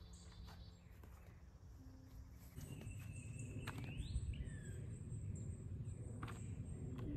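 Backyard ambience: birds chirping and insects, with a low rumble that grows louder about two and a half seconds in and a few faint clicks.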